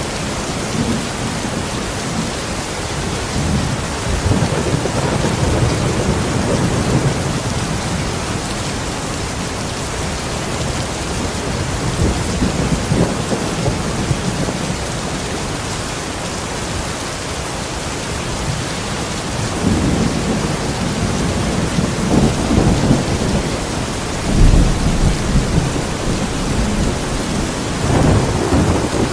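Steady heavy rain with low thunder rumbling through it in several slow swells, the deepest and loudest starting about three-quarters of the way in.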